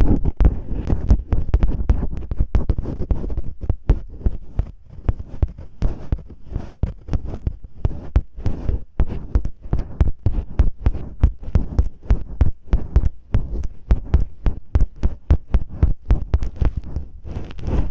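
Ear-cleaning-style ASMR with masking tape rubbed and scratched right against the microphone: a rapid series of muffled, bassy scrapes and thumps, several a second.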